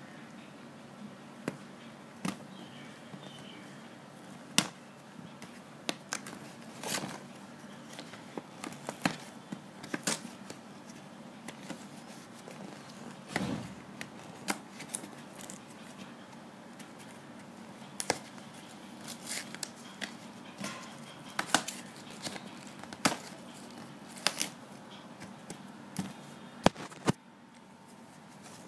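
Movicol powder packaging being handled and opened: scattered sharp clicks, taps and short rustles of cardboard and sachets, over a faint steady low hum.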